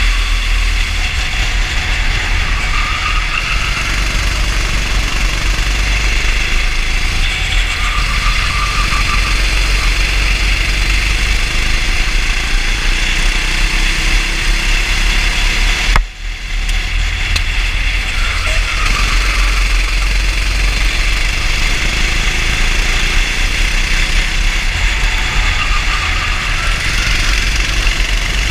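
Racing kart engine heard from on board at race pace, a steady drone under heavy wind buffeting, its pitch rising and falling a few times through the lap. The sound dips sharply for an instant about halfway through.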